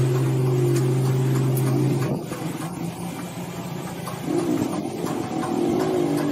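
Electric welding set humming under load as a carbon-rod holder heats and melts lead battery straps and terminals. The loud hum drops away about two seconds in and comes back, weaker and wavering, around four seconds in.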